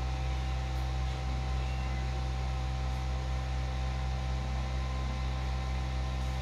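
Steady electric motor hum over an even, airy hiss, unchanging throughout.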